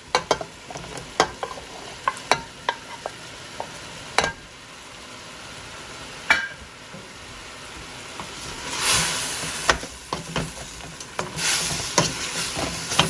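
Shrimp and broccoli stirred with a wooden spoon in a stainless steel pan over heat: repeated knocks and scrapes of the spoon against the pan over a steady sizzle. The sizzle swells louder twice in the second half.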